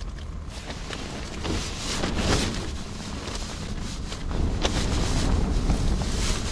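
Wind buffeting the microphone in gusts, a low rumbling noise that swells about two seconds in and again from about four and a half seconds.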